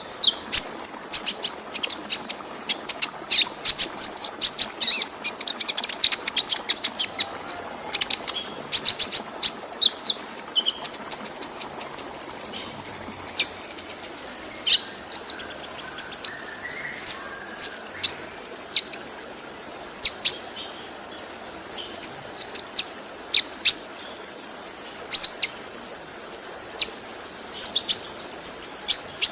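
Brown-throated sunbird (kolibri ninja) singing: rapid bursts of sharp high chirps and twitters, with a thin high trill about twelve seconds in. Beneath it runs the steady hiss of a waterfall.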